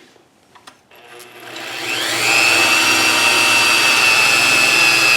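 Electric drill with a 1/4-inch (6 mm) bit drilling holes through a steel motorcycle kickstand. After a couple of light clicks, the motor spins up about a second in, with a rising whine, then runs steadily at full speed.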